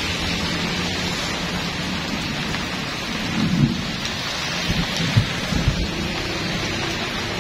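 Heavy rain pouring down and splashing onto a flooded road in a steady hiss. A few short, low thumps and rumbles come about halfway through.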